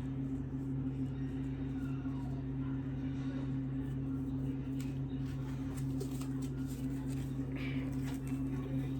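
Steady low hum, like a motor or appliance running, with a few faint light clicks around the middle.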